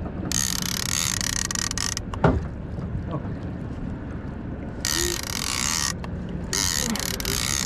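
Fishing reel ratcheting in three bursts of one to two seconds each, line going on or off the reel while a sturgeon is being fought on the rod. A single sharp knock about two seconds in.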